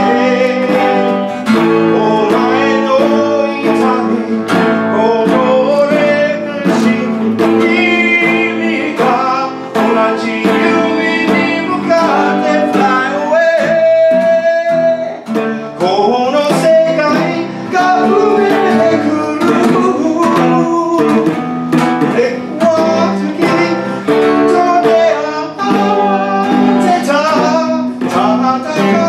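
Live acoustic guitar strumming and electric guitar playing together, with a man singing the melody over them.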